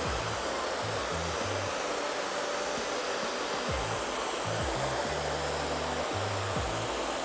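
Dyson Supersonic hair dryer with a diffuser attachment running steadily on low speed, an even airy hiss. Background music with a bass line plays underneath.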